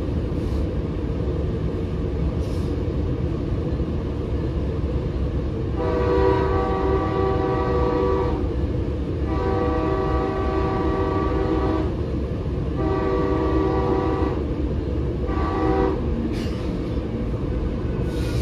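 Locomotive horn sounding four blasts, the first three long and the last short, over the steady rumble of a Metrolink train running, heard from inside a passenger car.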